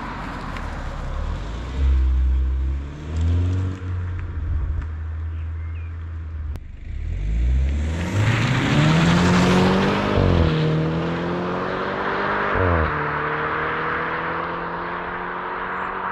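BMW 125i with its stock exhaust accelerating hard: after low rumbling swells, the engine note climbs steadily, dips briefly at a gear change about ten seconds in, then holds at a steady drone with a small drop near the end.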